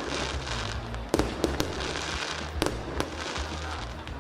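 Fireworks and firecrackers going off on the burning Puzhai fire dragon: about five sharp bangs, two of them close together, over a continuous hiss.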